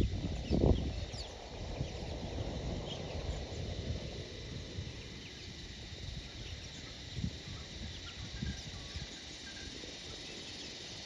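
Outdoor ambience: faint short bird chirps high up over a low rumbling noise, with a thump about a second in and a few softer ones later.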